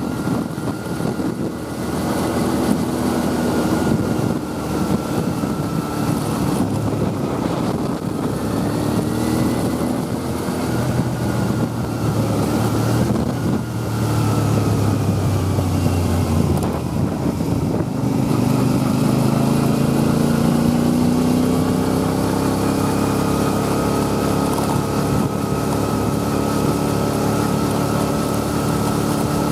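Motorcycle engine running while riding, its pitch rising and falling as it speeds up and slows down, over steady wind and road noise.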